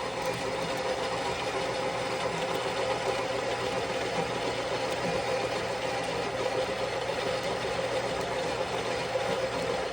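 Philips Baristina espresso machine's built-in burr grinder running steadily, grinding whole coffee beans fresh into the portafilter.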